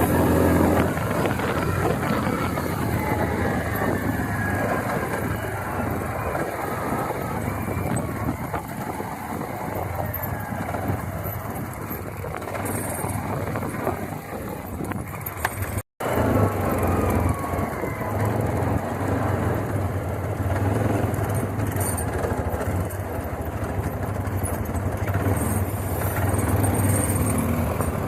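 ATV engine running on the move, a steady low drone under a dense rushing noise. The sound cuts out completely for an instant about halfway through.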